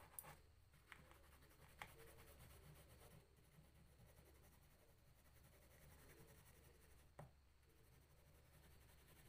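Faint, quick scratching of a green crayon shading across drawing paper, with a couple of light ticks.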